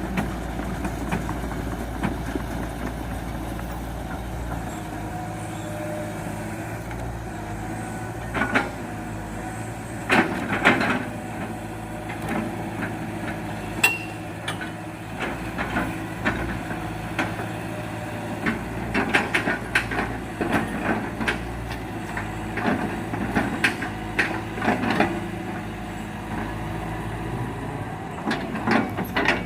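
Heavy diesel machinery, an excavator handling rubberwood logs, running steadily while the logs knock and clatter against one another and the machine, in scattered groups of sharp knocks.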